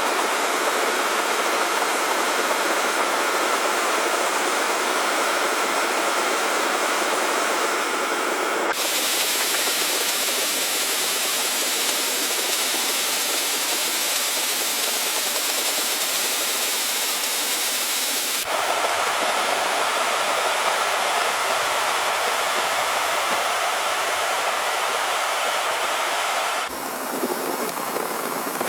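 Mountain stream: water rushing and splashing over rocks in a steady, dense wash. The sound changes suddenly to a different stretch of flowing water three times, about 9, 18 and 27 seconds in.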